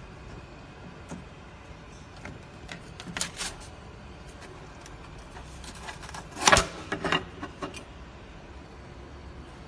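A flexible 3D-printer build plate being bent while a plastic print is prised off it: a few small clicks, then a loud cluster of sharp cracks about six and a half seconds in as the print pops free of the plate. A low steady hum runs underneath.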